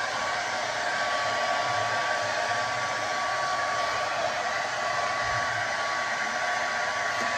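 Handheld hair dryer running steadily while drying hair: a continuous rush of air with a thin, steady whine riding on it.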